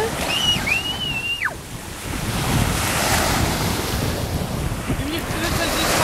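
Small waves breaking and washing up a sandy shore, with wind buffeting the microphone. A single high, drawn-out cry, held and then dropping in pitch, is heard in the first second and a half.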